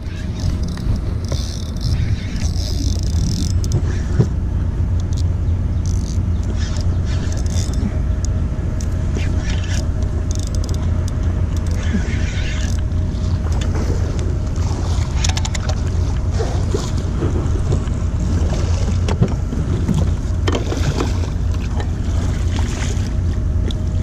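Spinning reel being cranked while fighting a hooked striped bass, with scattered clicks of reel and rod handling, over a steady low rumble of wind on the microphone.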